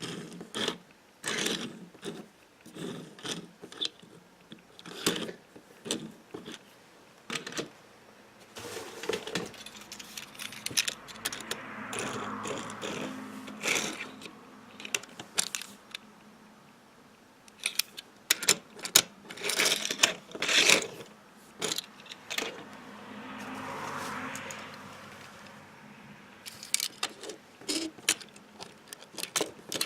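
Small die-cast toy cars being handled and knocked together: repeated clicks, clinks and clatter of metal and plastic. Twice a longer scraping sound swells for a few seconds and fades.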